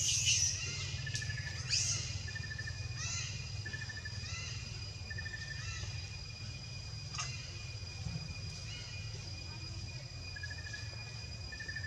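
Outdoor animal calls: short high trills repeating about once a second, with a few sweeping chirps in the first few seconds, over steady high-pitched tones and a low rumble.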